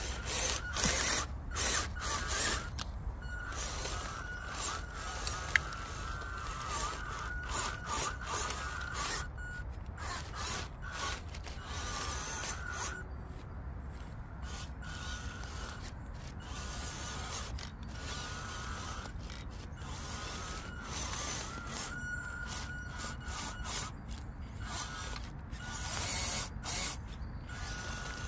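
WPL URAL B36 6x6 RC truck's electric motor and upgraded transmission whining in repeated bursts as the throttle is worked, the pitch wavering, over crackling and snapping of dry leaves and twigs under the tyres. The rear axle is not being driven: the upgraded driveshaft's grub screws were not Loctited and slip under load.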